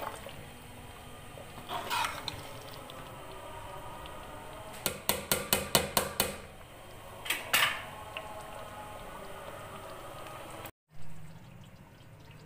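A metal spoon scrapes and clinks against a steel pot while stirring thick, bubbling curry gravy being fried on high heat, with a quick run of clinks around five seconds in. Near the end the sound cuts to a quieter low hum.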